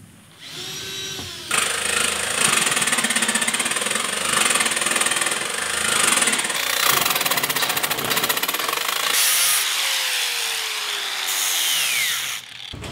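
Angle grinder with a cutoff wheel cutting through steel sheet metal: a loud, steady rasping grind. Near the end the motor's whine falls in pitch as the wheel spins down, and the sound stops.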